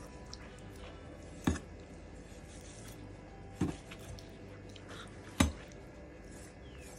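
Kitchen knife knocking on a bamboo cutting board as it cuts through a raw chicken breast: three single sharp knocks, a second or two apart.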